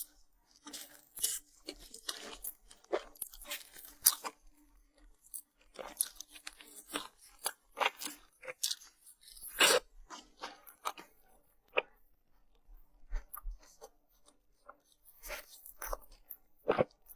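Close-up eating: a run of sharp, irregular crunches and chewing as someone bites into and chews crisp food.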